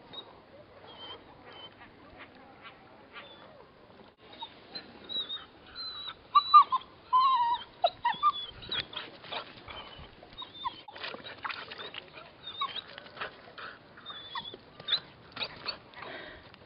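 Cockapoo whining in short, high-pitched, wavering glides, loudest about six to eight seconds in, amid many short clicks.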